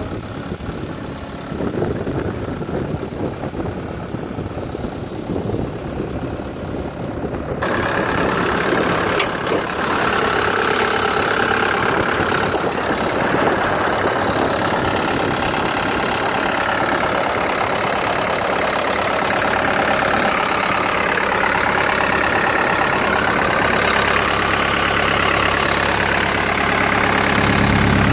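Cat 262C Series 2 skid steer loader's diesel engine running steadily. About a quarter of the way through, the sound turns abruptly louder and brighter, and it stays that way.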